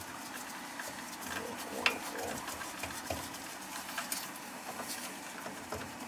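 Gloved hands handling the housing of a Riello oil burner on a furnace: a sharp click about two seconds in and a few lighter ticks, over a steady low hiss.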